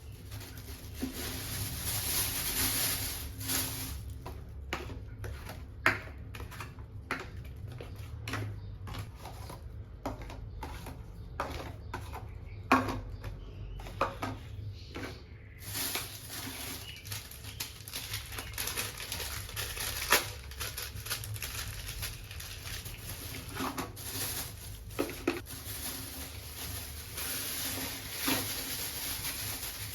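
Groceries and containers being handled and set down during a fridge restock: irregular light clicks and knocks with rustling, busiest in the first half.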